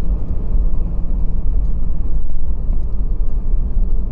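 Steady low rumble of a car on the move, heard from inside the cabin: engine and tyre noise.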